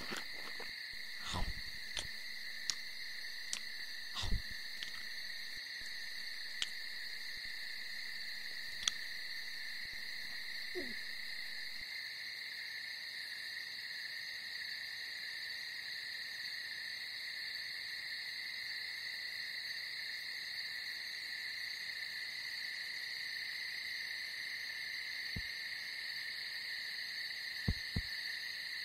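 Cartoon chewing and crunching effects, a caterpillar biting into fruit, as irregular sharp clicks and crunches over the first nine seconds or so. They sit over a steady high-pitched ambient drone that runs throughout, with a single falling tone about eleven seconds in and a few soft ticks near the end.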